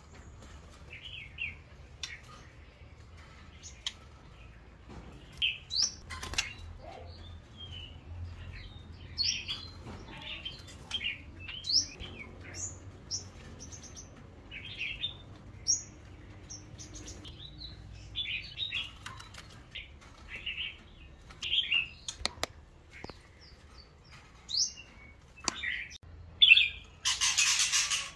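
Caged white-rumped shama giving short, scattered chirps and whistles, with a few sharp clicks in between. A brief loud burst of noise comes near the end.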